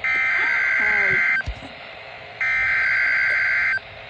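Emergency Alert System SAME header: two bursts of the digital data signal, each about one and a half seconds long and about a second apart, coding the severe thunderstorm watch alert at the start of a NOAA Weather Radio broadcast.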